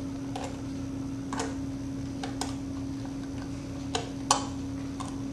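Sharp metallic clicks and taps, about seven in all, from a screwdriver working the screws of the cover plate on a tumbler dryer's fan motor as the plate is taken off. A steady low hum runs underneath.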